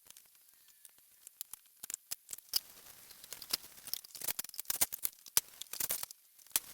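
Irregular sharp taps, clicks and knocks of hands and a knife working on a cutting board while a raw chicken is cut up, sparse at first and coming thick and fast from about three seconds in.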